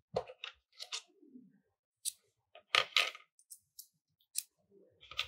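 Irregular light clicks and taps from small tools and parts being handled on a plastic drone frame, with a short cluster of rattles about three seconds in.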